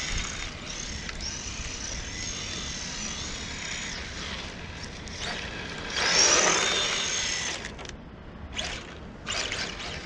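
RC drift car's motor whining, its pitch rising and falling with the throttle, over a hiss of tyres sliding on asphalt. It grows loudest as the car sweeps close by about six seconds in, then fades into shorter, fainter passes.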